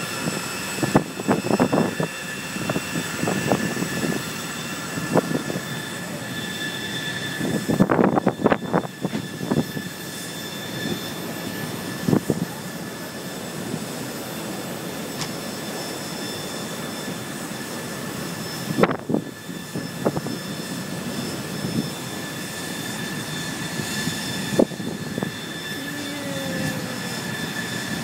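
Steady rushing and whining of a warship's machinery on an open deck, with strong wind in irregular gusts buffeting the microphone and heavy seas breaking.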